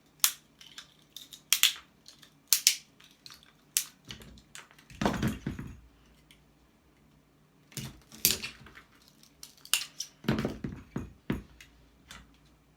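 Hand tools working on scrap: scattered sharp metallic clicks and snips, with a few longer crunching scrapes about five, eight and ten seconds in.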